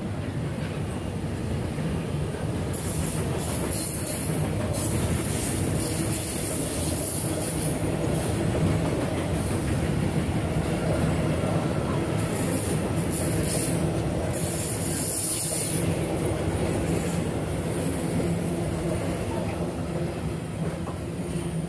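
A long freight train of container and tank-container wagons rolling steadily past, with a continuous rumble of wheels on rail. High-pitched wheel squeal comes and goes several times.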